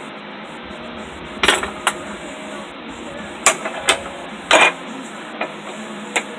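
Sharp metal clanks of steel being struck and handled at the anvil: about seven irregular strikes, the loudest coming in close pairs, over a steady rushing background noise.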